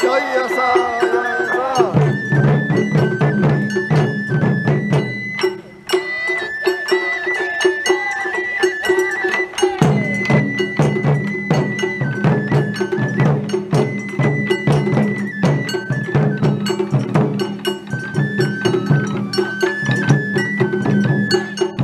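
Japanese taiko drum ensemble playing: dense, rhythmic strokes on large wadaiko drums under a bamboo flute melody of held, stepping notes. The drumming dips briefly around six seconds in, then picks up again.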